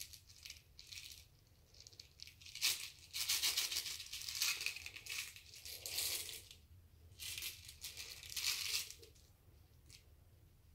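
Loose plastic airsoft BBs rattling inside a small clear plastic pack as it is handled and shaken, in several bursts with a short pause between.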